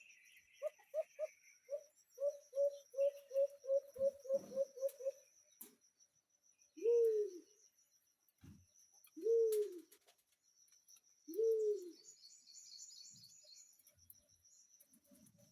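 A bird giving low, dove-like coos: a quick run of about a dozen short notes that speeds up, then three longer coos that fall in pitch, about two seconds apart.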